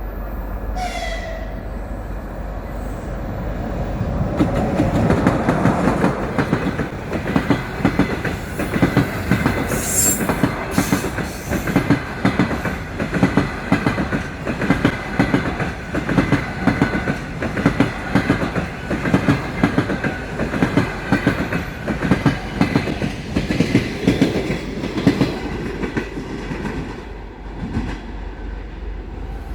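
Train wheels clattering over rail joints in a steady rhythm of about two clicks a second, over a continuous rumble. The clatter builds up a few seconds in and fades near the end.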